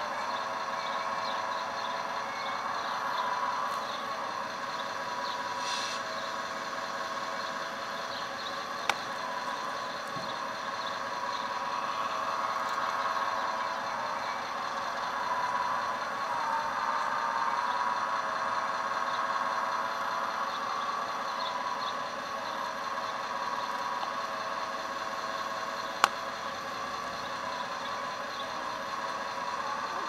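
1/14-scale CAT 330F full-hydraulic RC excavator at work, its hydraulic pump whining steadily with small shifts in pitch as the arm and bucket move. Two sharp clicks, one about nine seconds in and one near the end.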